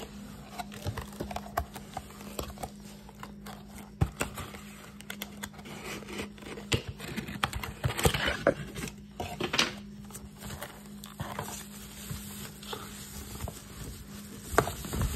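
Cardboard packaging being handled and opened by gloved hands: a paper sleeve slid off a box, scattered knocks and rustles of cardboard, and a stretch of blade cutting through cardboard about eight to ten seconds in. A faint low hum runs underneath.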